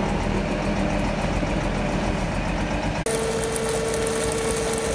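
A heavy-machine engine runs steadily for about three seconds, then the sound changes abruptly to a Dazzini TCI260VH quarry chain saw running its cutting chain down through a vertical cut: a steady whine with hiss.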